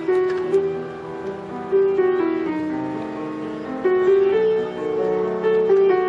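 Instrumental background music: a melody of held notes that changes about every half second.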